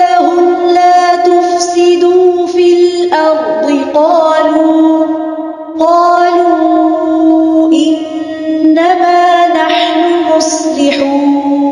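Quranic recitation in tajweed style: one voice chanting in long held, ornamented notes that step between pitches, with short pauses for breath.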